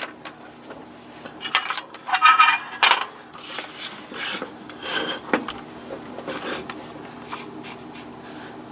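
Scraping and rubbing of hand tools and metal parts on a workbench, with a click at the start and a cluster of louder scrapes about two seconds in, one carrying a brief ring, then lighter scrapes and taps.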